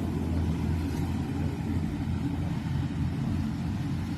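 Rice harvester's engine running steadily.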